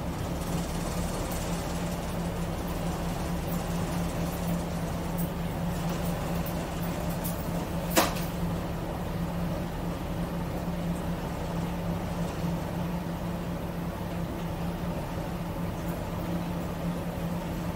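Car ferry's MWM diesel engine running steadily, a low drone heard inside the wheelhouse, with one sharp click about halfway through.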